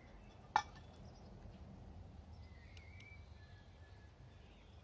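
A single sharp metallic clink about half a second in: a spoon knocking against a metal mug while stirring coffee. Under it a low steady outdoor background, with a faint bird call around the middle.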